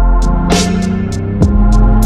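Background music for a montage: an electronic track with a steady beat. Deep drum hits, falling in pitch, land twice under regular high ticking and a sustained bass.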